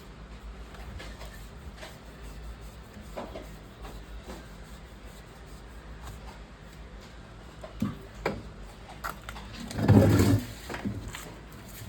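Low steady hum with scattered light clicks and knocks of objects being handled, and one louder thud about ten seconds in.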